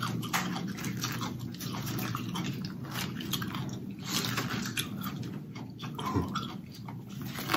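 Close-miked eating: irregular crunching, cracking and wet chewing of food, many short clicks and cracks one after another.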